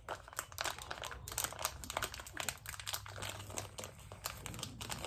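Plastic packaging crinkling and crackling in irregular bursts as a new chainsaw chain is unwrapped by hand.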